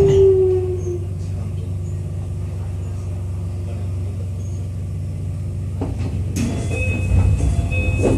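Keio 8000 series train's Hitachi GTO-VVVF inverter whining downward in pitch as the train slows under braking. The whine fades out about a second in, leaving a steady low hum in the car. A sudden noise and short high tones start about six seconds in.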